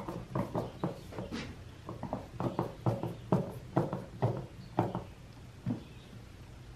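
Screwdriver driving a small screw into the plastic rear-handle and fuel-tank housing of a chainsaw, a short click with each twist at about two a second, stopping near the end.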